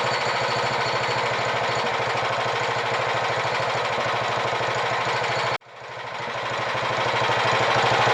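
Hudson Patriot band sawmill running, its engine working steadily with an even pulse as the blade cuts through a red oak log at the mill's maximum depth of cut. The sound cuts off abruptly a little past halfway, then comes back and builds gradually.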